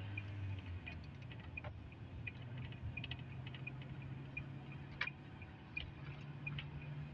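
Inside a moving car: a low engine and road hum that rises in pitch as the car speeds up, with the turn-signal indicator ticking evenly about one and a half times a second. A few louder clicks stand out, the sharpest about five seconds in.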